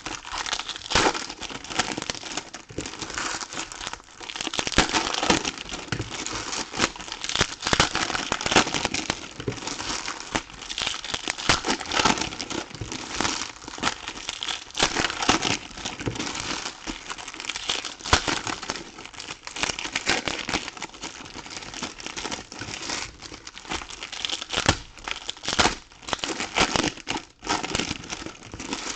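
Trading-card packaging being torn open and handled: a continuous run of crinkling and crackling with sharp rustles, from plastic and foil wrappers of a box of Topps Chrome baseball cards.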